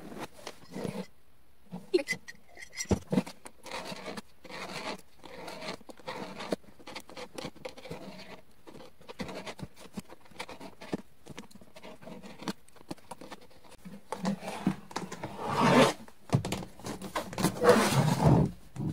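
Box cutter blade sawing and scraping through a hard plastic storage-bin lid: a run of short, irregular scratching strokes. Near the end the strokes get louder, with knocks as the plastic lid is shifted and tipped up.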